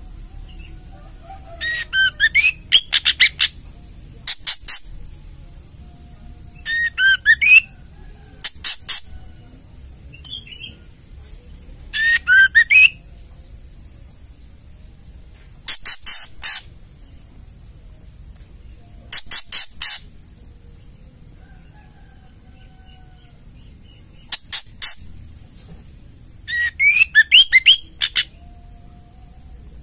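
White-rumped shama giving its harsh rattling chatter ('ketrekan'): about eight short bursts, each a second or so long, of rapid rattling notes mixed with a few brief whistled notes, separated by pauses of a few seconds.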